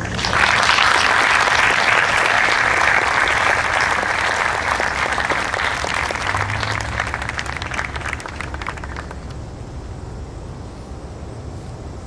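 Audience applauding, starting suddenly and loudly, then dying away over about nine seconds.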